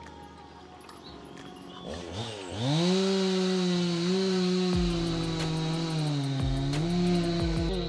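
A small engine revs up about two and a half seconds in and then runs steadily at high speed, its pitch dipping briefly a couple of times.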